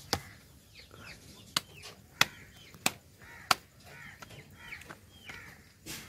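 Sharp wooden knocks from a rolling pin working paratha dough on a wooden board: five in all, the last four evenly spaced about two-thirds of a second apart. Chickens cluck in the background.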